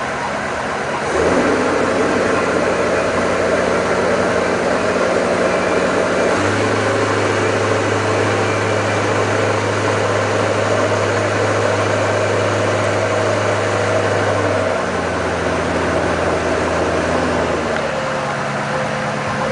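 Motorboat engine running, its note changing in steps: it gets louder about a second in, shifts to a deeper, stronger hum around six seconds, and eases back down near fifteen seconds and again near eighteen.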